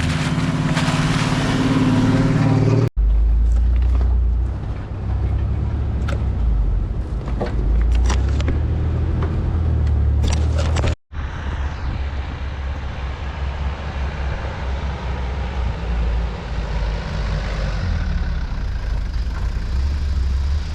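A 4x4's engine running as the vehicle drives, in three cut-together pieces: first a steady pitched engine drone, then a deep rumble with scattered clicks and knocks, then a steadier deep rumble.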